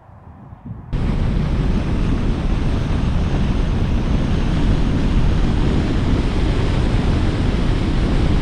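Wind rushing over the microphone together with tyre and road noise from a car driving at speed, cutting in suddenly about a second in and holding steady.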